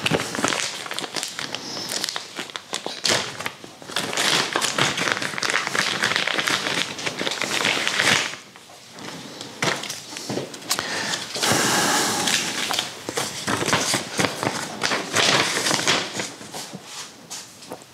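Packing material crinkling and rustling while parts are handled, with many small taps and knocks, in two long stretches with a lull in the middle.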